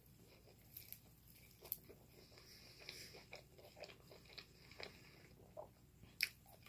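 Faint close-up chewing of fast food: soft mouth noises and small crunches, with two sharper clicks, one near two seconds in and one near the end.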